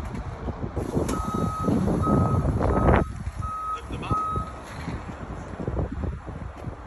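Vehicle reversing alarm beeping five times at one steady pitch, starting about a second in, over a low rumble.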